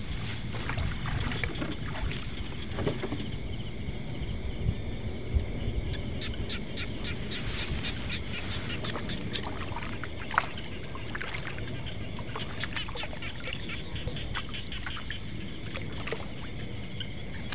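Night chorus of insects chirping in quick pulses, with a steady high insect drone above them, over a low rumble. A few sharp clicks stand out.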